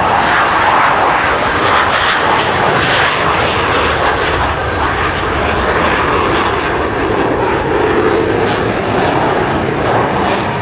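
Jet engines of the Blue Angels' four-ship Diamond formation of F/A-18 Hornets, heard as a loud, steady rushing noise as the formation flies a loop.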